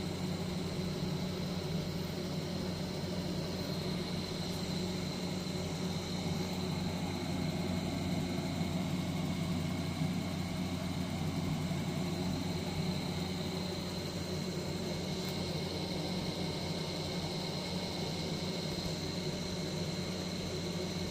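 A steady low mechanical hum with a faint high whine, unchanging throughout.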